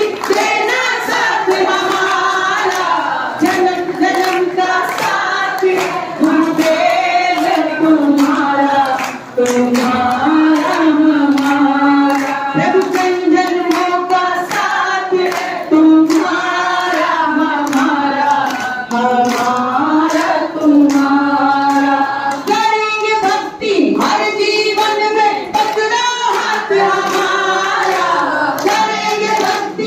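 A Hindu devotional bhajan being sung, with steady rhythmic hand clapping from the congregation keeping time.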